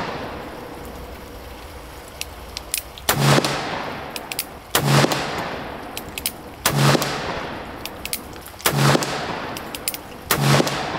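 Colt Cattleman single-action revolver with a 5.5-inch barrel firing black-powder loads (24 grains of Swiss 3F): five shots about one and a half to two seconds apart, each trailing off in a long fading echo, with light clicks between them.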